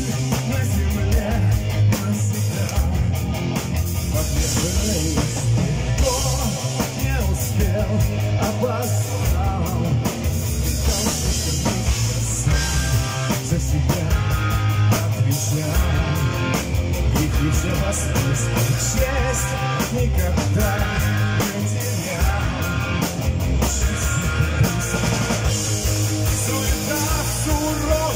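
Live metal band playing: electric guitar, bass guitar and drum kit, with a man singing the lead vocal.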